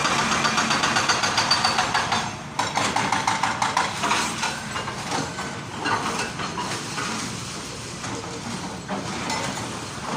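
Jackhammer hammering in a rapid, even stream of blows. It stops briefly about two and a half seconds in, then starts again less regularly and grows gradually quieter.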